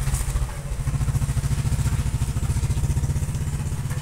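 A small engine running steadily at idle, a low, fast, even chugging.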